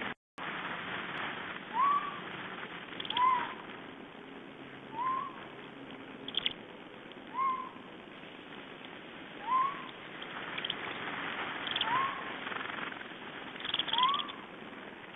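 A short, rising whistled call repeated seven times, about every two seconds, which the recordist takes for an owl.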